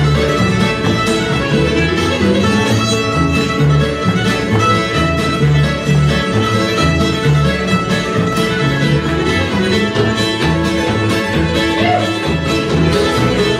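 Old-time string band playing an instrumental passage: fiddle leading over mandolin, acoustic guitar and upright bass, with an even, steady bass pulse.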